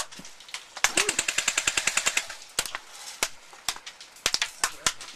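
Airsoft guns firing: a fast full-auto burst of about ten shots a second, lasting about a second and a half, then scattered single shots.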